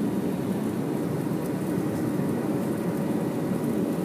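Jet airliner's turbofan engines and rolling rumble heard from inside the cabin: a steady low roar with a faint whine above it.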